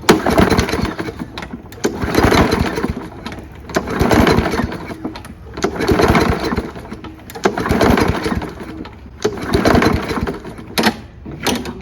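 Gas lawn mower being pull-started over and over, about six pulls roughly two seconds apart, with two quick pulls near the end. The engine turns over with each pull but does not catch: the mower won't start.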